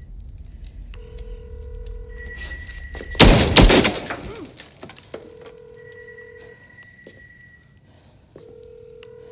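Electronic telephone ringtone repeating, each ring a low chord of tones followed by a higher single tone. About three seconds in it is cut across by two loud bangs about half a second apart.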